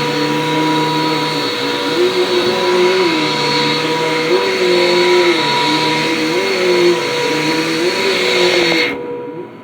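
Dirt Devil compact vacuum cleaner running, a steady whine over a lower hum that wavers up and down as it works the floor. It is switched off near the end, the noise stopping abruptly and the motor's whine falling away as it winds down.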